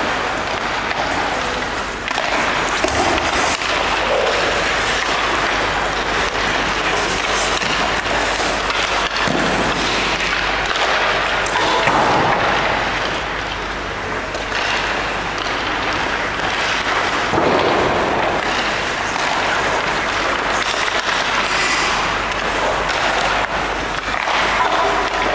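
Hockey play: a continuous noisy din with frequent knocks and thuds.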